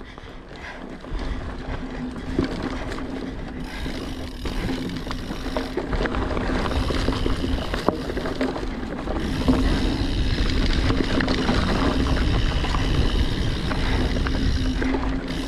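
Mountain bike riding along a dirt trail, heard from a chest-mounted GoPro: tyres rumbling over the ground with a steady hum and wind on the microphone, plus a few sharp knocks from bumps. It gets louder about a second in as the bike picks up speed.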